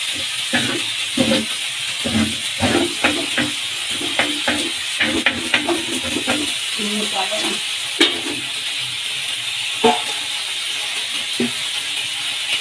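Onion, garlic and tomato masala with fish frying on a hot tawa, with a steady sizzle, while a slotted spatula stirs and scrapes against the tawa in quick, irregular strokes; two sharper knocks come about eight and ten seconds in.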